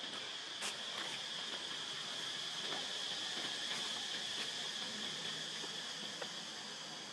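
Insects droning steadily in a high, even pitch, with a couple of faint clicks about a second in.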